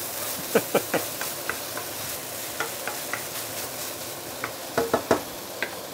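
Smashed-up small snappers frying in oil in a non-stick wok, sizzling steadily, while a wooden spatula stirs them and clacks against the pan at irregular intervals, with a quick cluster of clacks about five seconds in.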